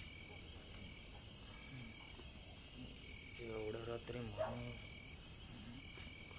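Night ambience of crickets or other insects chirring steadily with short repeated chirps, and frogs croaking, with a louder run of croaks around three and a half to four and a half seconds in.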